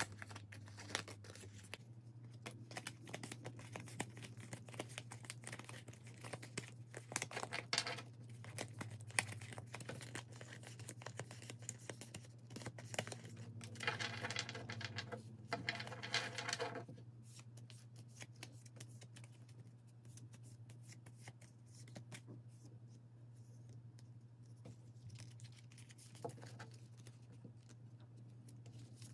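UNO playing cards handled in the hands: rapid clicking and rustling of cards being flicked, slid and squared. A louder stretch of fast card flicking comes about halfway through, then the handling goes quieter and sparser, over a steady low hum.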